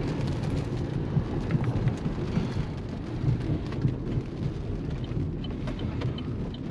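Thunderstorm: rain falling, with small scattered drop ticks over a steady low rumble.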